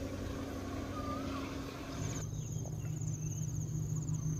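Diesel train running steadily in the distance, with a short rising-and-falling whistle twice. About two seconds in, the sound changes to insects trilling steadily over a low hum.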